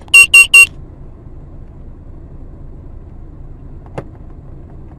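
Three short, loud electronic beeps in quick succession, then the low steady hum of a vehicle running, with a single click about four seconds in.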